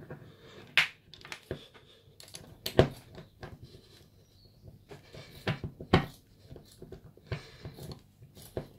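Small steel parts of a CZ 455 .22 rimfire bolt clicking and knocking in the hands as the spring and retainer assembly is pushed at the bolt body; scattered sharp clicks at irregular intervals, the loudest about three seconds in. The parts are not lined up, so the assembly won't slide in.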